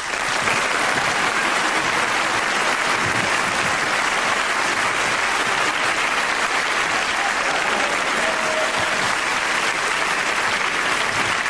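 Large theatre audience applauding, starting suddenly and holding steady.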